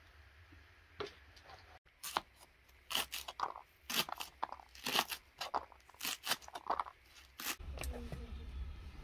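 A knife chopping fresh green onions against a wooden block: a run of crisp, crunching cuts, one or two a second. Near the end the cutting stops and a steady low rumble takes over.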